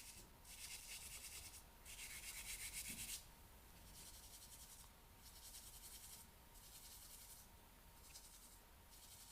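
Ear-cleaning ASMR: a tool rubbing and scratching on the microphone in a run of soft, scratchy strokes, each about a second long, with short pauses between.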